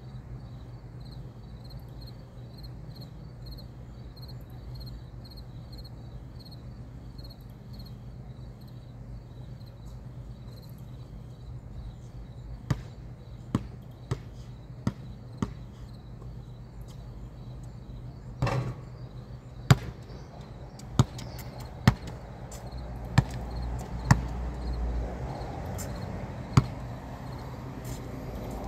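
A basketball bouncing on an outdoor concrete court, heard from a distance: about a dozen sharp, irregularly spaced bounces starting about halfway in, with one longer, ringing impact among them. Before them there is only a faint, evenly pulsing insect chirp over a low steady hum.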